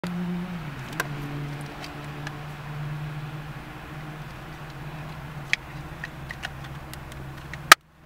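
Steady low hum of a car running inside its cabin, dipping slightly in pitch in the first second, with scattered light plastic clicks as a phone case is handled. A sharp loud click near the end, then the sound cuts off abruptly.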